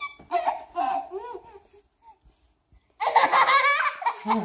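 Baby laughing in short bursts, then a pause of about a second and a half, then a loud, high-pitched laugh with wavering pitch.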